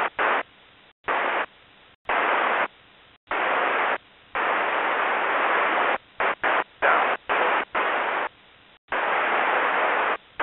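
UHF air-band scanner on 284.25 MHz picking up a string of keyed transmissions that are only static hiss, with no clear voice. The squelch opens and cuts off sharply again and again, in bursts from a fraction of a second to about a second and a half long.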